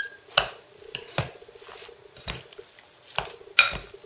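A fork working a wet minced-meat mixture with egg and breadcrumbs in a glass bowl: irregular squelches and scrapes with sharp clicks where the fork knocks the glass, the loudest a little over three and a half seconds in.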